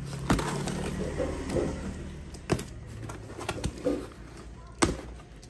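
Cardboard shipping box being slit open with a utility knife and its flaps pulled apart: scraping and rustling cardboard broken by several sharp clicks and knocks.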